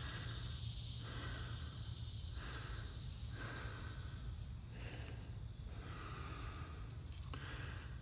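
Steady high-pitched insect drone, with a lower buzzing that comes and goes about once a second.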